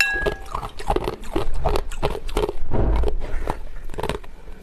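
Close-miked crunching and chewing of hard ice in the mouth: an irregular run of sharp crackling crunches as the teeth break up the ice, with a fresh bite into the ice block near the end.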